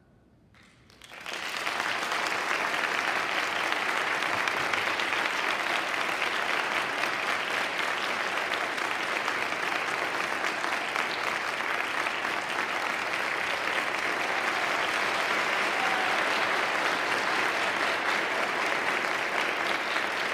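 About a second of near silence, then an audience breaks into steady, sustained applause.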